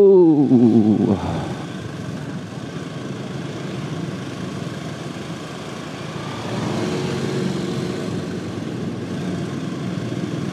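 A man's drawn-out call, falling in pitch, ends about a second in, giving way to a motorcycle engine running steadily under wind and road noise while riding. About six and a half seconds in the engine note grows louder.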